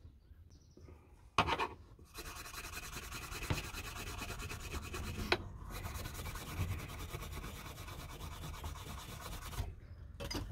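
A knock, then fast back-and-forth rubbing on a steel chisel blade, scrubbing off grime to bring up the maker's stamp, with a brief break midway.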